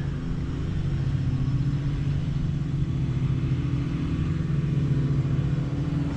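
Quadcopter's electric motors and propellers humming steadily as it holds a stable hover.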